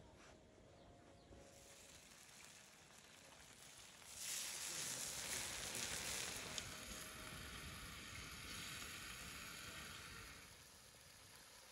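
Whole trout frying in oil in a wide pan, sizzling. The sizzle swells sharply about four seconds in as the fish are turned with wooden spatulas, then eases off near the end.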